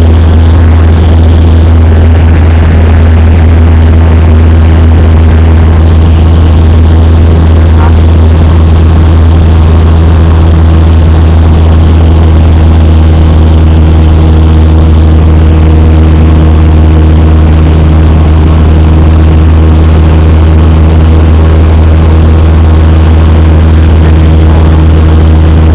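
Cessna 172's piston engine and propeller running steadily in flight, heard from inside the cabin as a loud, even low hum that does not change.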